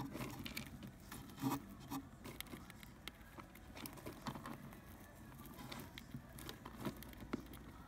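Budgerigars pecking and shuffling in a dry mix of seed and crumbled egg food in a plastic box: irregular soft taps, clicks and rustles.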